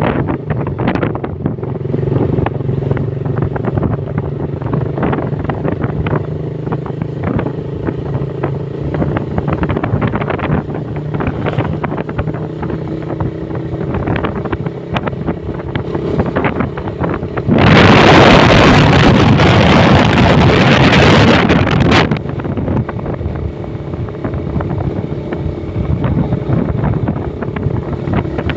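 Motorcycle engine running at a steady cruise, with wind rushing over the microphone. About two-thirds of the way in, a much louder rush of noise swamps everything for about four seconds, then drops away suddenly.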